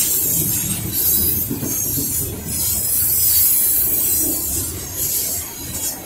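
Coal train's open hopper cars rolling slowly past, with a steady wheel rumble on the rails and a high-pitched wheel squeal that swells and fades every second or two.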